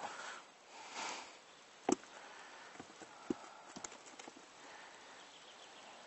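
Faint, quiet stillness broken by a few sharp little clicks and knocks, the clearest about two seconds in and a couple more a second or two later, over a soft hiss that swells briefly twice near the start.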